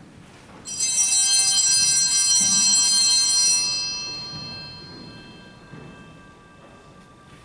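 Altar bells rung at the elevation of the chalice during the consecration: a bright, many-toned ringing, held for about three seconds, then dying away.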